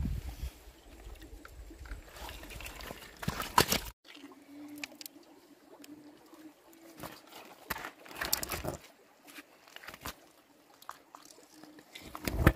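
Hands splashing and rummaging in shallow muddy water among creek stones, with a few sharp sloshes and knocks as stones are lifted and turned over. A faint steady hum runs for a few seconds in the middle.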